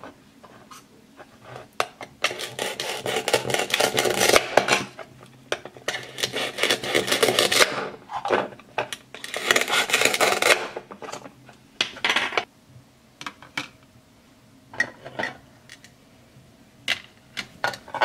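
Velcro tearing apart as a plastic toy knife cuts through a toy bread loaf, about four long rips in the first two-thirds. Near the end come a few light plastic clicks and taps on a plastic cutting board.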